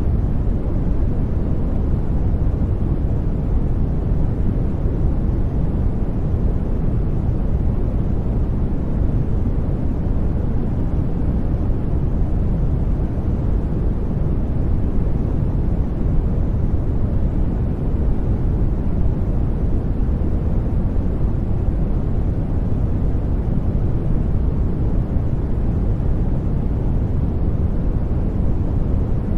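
Continuous sleep noise: a steady, deep rushing hiss, heaviest in the low end and soft in the highs, unchanging throughout.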